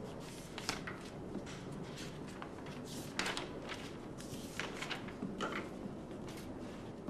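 Scattered soft rustles and light clicks of a person moving and handling things at a desk, irregular and brief, over a faint steady hiss.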